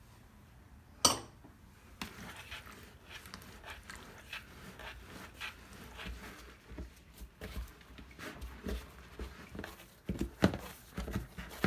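Hands mixing flour into wet yeast dough in a plastic bowl and kneading it: irregular soft squishing and rubbing strokes, with a single sharp knock about a second in and a few louder slaps near the end.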